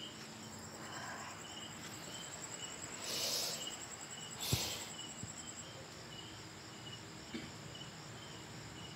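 Crickets chirping in a night-time ambience: a steady high trill that stops about halfway through, over a slower repeating chirp about twice a second. Two short rustles come a few seconds in.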